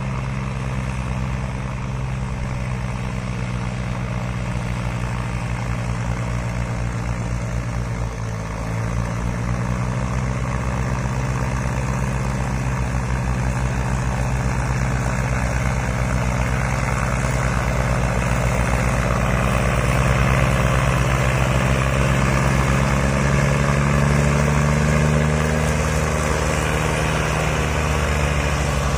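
Diesel tractor engines, a Massey Ferguson 241 among them, running hard under heavy load as they haul an overloaded sugarcane trolley through mud. A steady engine drone that dips briefly about eight seconds in, then grows louder.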